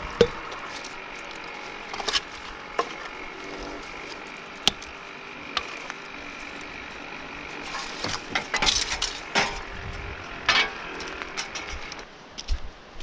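Scattered clanks and knocks of burned trailer scrap metal being handled and shifted, with a busier run of clattering about two-thirds of the way in.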